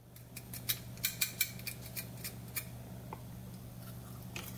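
Knife and fork cutting into crispy coconut-flour-coated fried chicken on a ceramic plate: the crust crackles in a quick run of sharp clicks for about two and a half seconds, then only a few scattered ticks, over a low steady hum.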